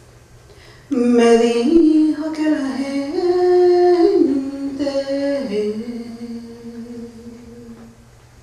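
A solo voice singing a slow, wordless melody with no instruments. It enters about a second in, moves in held notes that step up and down, and fades out near the end.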